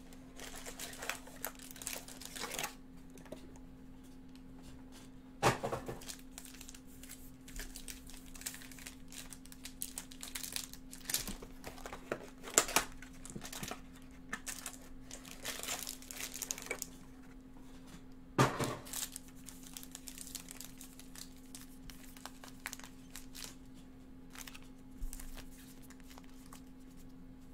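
Cardboard box and foil-wrapped Bowman Chrome card packs being handled and torn open: on-and-off crinkling and tearing, with a louder knock of handling about 5 s in and again about 18 s in. A faint steady hum runs underneath.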